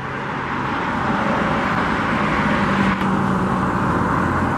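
Road traffic: a vehicle going by, its tyre and engine noise building over the first second and holding steady, with the higher hiss falling away sharply about three seconds in.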